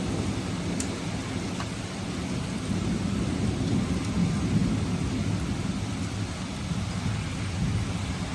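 Steady rain falling, with a low rolling rumble of thunder that swells at the start and goes on underneath. A couple of faint drip ticks sound about a second in.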